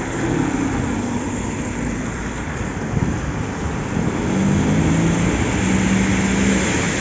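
Street traffic: vehicles passing on a wet road, with an engine hum that grows louder about four seconds in.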